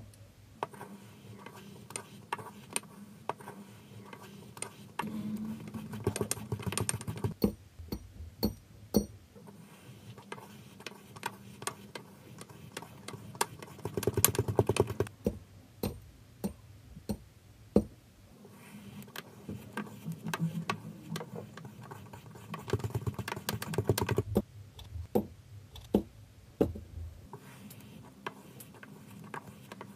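Kinetic sand crunching and crumbling as it is pressed down inside a glass with a black plunger: a dense crackle of small clicks and ticks that comes in several thicker stretches, with sharper single clicks between.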